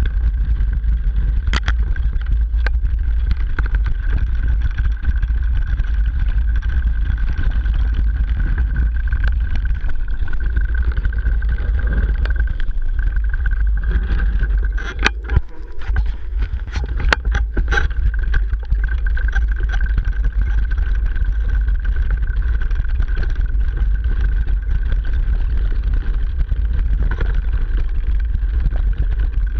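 Mountain bike ridden fast downhill, heard through a camera mounted directly on the bike: a loud, steady rumble of tyres crunching over snow, leaves and rocks, mixed with suspension movement, and sharp knocks now and then, several in a cluster about halfway through.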